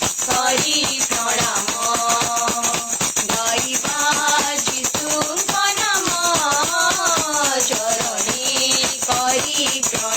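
Devotional worship music: a melody over a steady, continuous shaken-percussion rhythm such as a tambourine.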